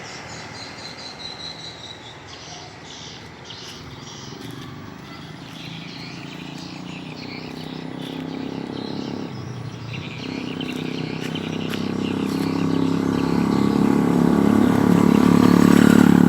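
Outdoor background with a few short bird chirps, then an engine's steady hum growing louder over the second half, as if approaching.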